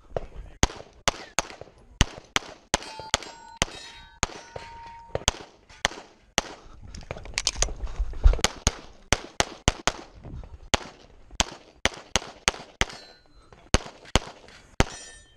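Rapid pistol fire from a 9mm Walther Q5 Steel Frame shooting a course of fire: dozens of shots, many in quick pairs, with pauses between strings. A hit steel plate rings with a sustained metallic ding about three to five seconds in.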